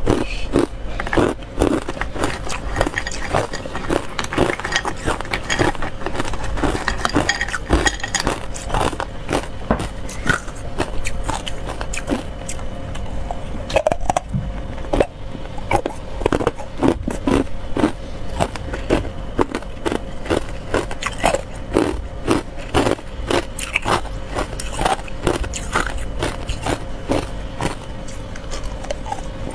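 Ice cubes dusted with matcha powder being bitten and chewed close to the microphone: a fast, continuous run of sharp cracks and crunches.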